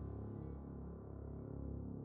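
Quiet ambient background music: a low, steady drone.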